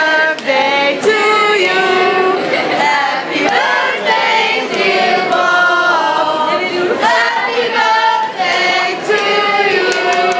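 A group of voices singing unaccompanied, several parts holding notes together and moving from note to note.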